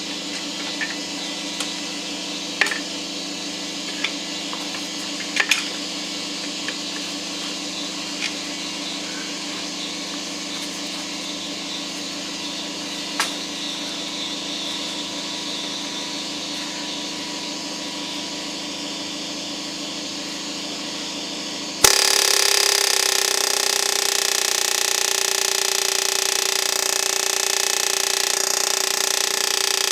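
A steady hum with scattered sharp metallic taps, then about two-thirds of the way through an air chisel starts up and hammers continuously against a seized piston, driving it out of its bore in a locked engine.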